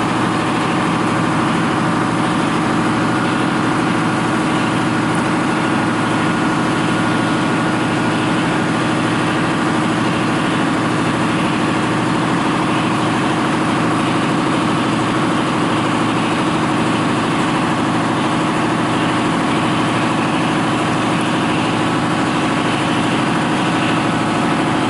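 A motor running at a steady speed, a constant loud hum with a whine over it.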